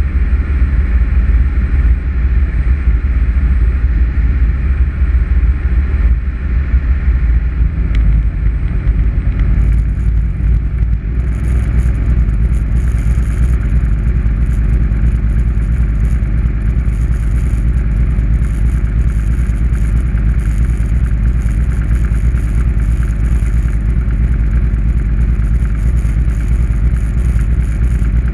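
Light single-engine propeller plane's engine and propeller droning steadily, heard from inside the cockpit on the approach to landing. About ten seconds in the engine note drops slightly, and a fluttering hiss joins it.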